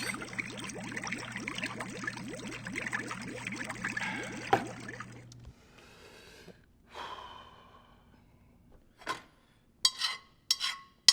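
Running water, steady for about five seconds, cuts off suddenly. Then come a couple of breaths or gasps and a few sharp clicks near the end.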